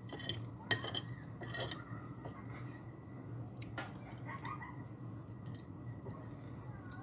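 Metal fork and spoon clinking against a ceramic plate: several sharp clinks in the first two seconds, one more near the middle, then fainter taps.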